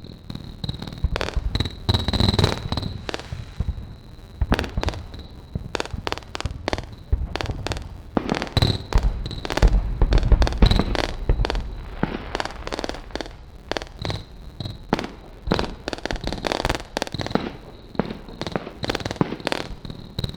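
Indoor fireworks crackling and popping in rapid, irregular bursts, over a thin steady high tone, with a heavier low rumble about halfway through.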